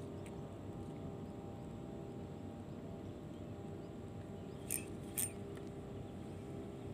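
Boat engine running steadily with a low hum. Two sharp clicks come half a second apart about two-thirds of the way through.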